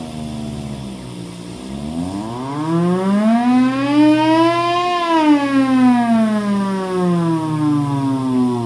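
Hand-crank siren with a blower feeding it, wailing: the pitch sinks low about a second and a half in, climbs to a peak around the middle, then winds back down. A steady low hum runs underneath.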